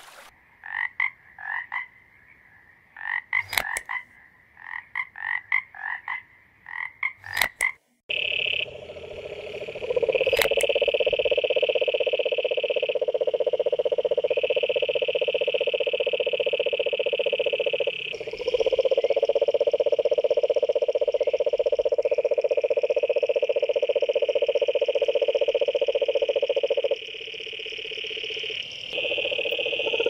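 Frogs calling: for the first several seconds, groups of short repeated chirping notes; then, from about eight seconds in, a long continuous pulsed trill that stops briefly a few times before starting again.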